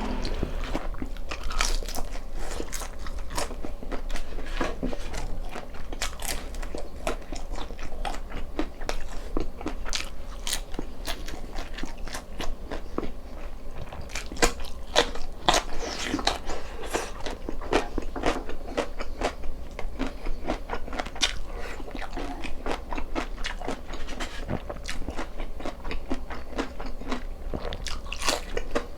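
Close-miked eating sounds: a person biting and chewing food, with many short crunches and wet clicks coming irregularly throughout.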